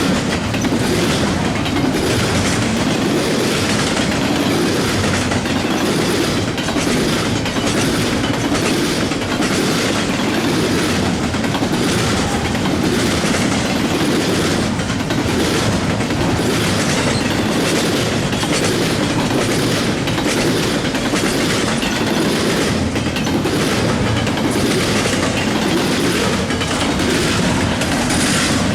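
Long mixed freight train rolling steadily past, its wheels clicking in a regular clickety-clack over the rail joints beneath a continuous loud rumble.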